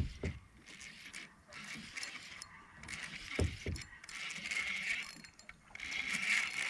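Fishing reel being cranked, its gears whirring steadily as the line is wound in; the whir grows louder twice in the second half. A single thump comes about halfway through.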